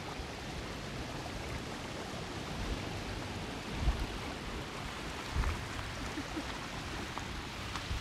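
Steady hiss of shallow seawater washing over shoreline rocks. Two brief low thumps come about four and five and a half seconds in.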